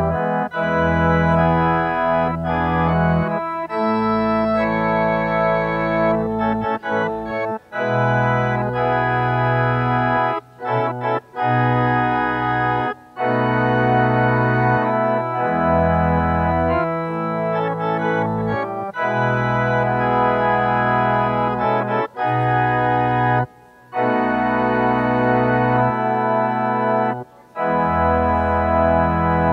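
Organ playing slow, sustained chords that change every second or two, with a few short breaks between phrases.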